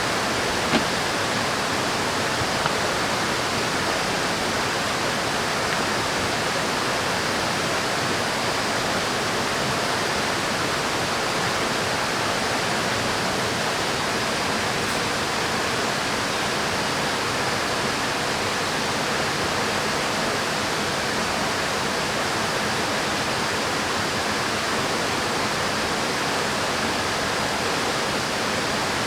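River water rushing steadily, with a faint click about a second in and another a couple of seconds later.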